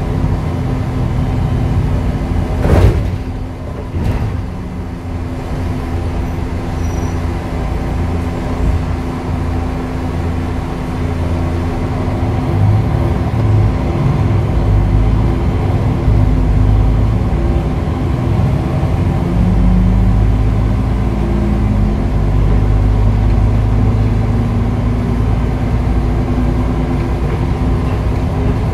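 MAN NL263 Lion's City city bus heard from inside the cabin, its six-cylinder diesel engine and drivetrain humming steadily as the bus pulls away and gathers speed. There are two sharp knocks about three and four seconds in, the first being the loudest sound.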